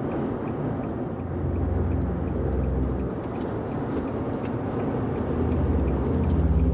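Steady low rumble of a moving vehicle heard from inside, with a deep hum that swells about a second in and again near the end.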